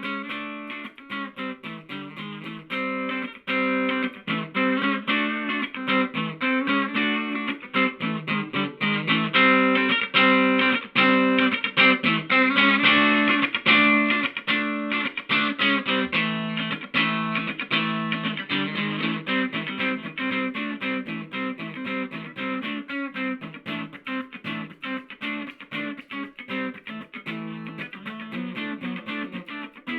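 Electric guitar played through a handmade KATANASOUND effect pedal: a long, busy run of quickly picked notes that grows louder around the middle.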